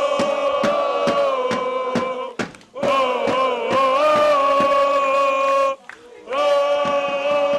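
Crowd singing or chanting long held notes in unison, breaking off briefly twice, with many sharp cracks and pops throughout.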